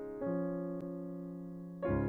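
Slow, soft piano music: held chords, with a new chord struck about a quarter second in and another near the end.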